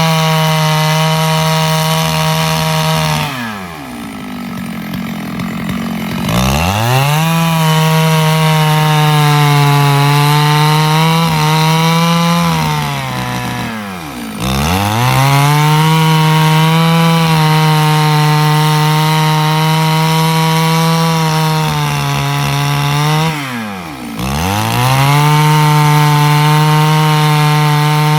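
Stihl 651 chainsaw running at high revs while sawing wood, its engine note steady under load. Three times the revs drop away and wind back up, as the throttle is let off between cuts.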